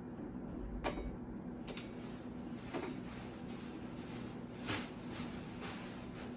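Ultrasound machine's control-panel keys clicking five times, roughly a second apart, over a steady low hum.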